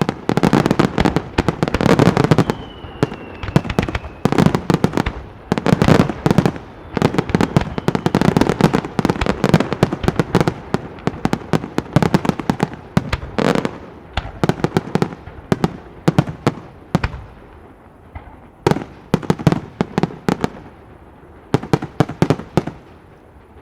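Professional fireworks display: waves of rapid bangs and crackling shell bursts, with a brief falling whistle about three seconds in, thinning to scattered pops near the end.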